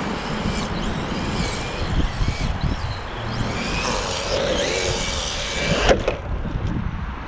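Electric RC truck driving, its brushless motor whining up and down with the throttle over tyre noise. About six seconds in there is a single knock and the motor whine cuts off suddenly: the truck tapping a curb, which breaks its 3D-printed motor mount.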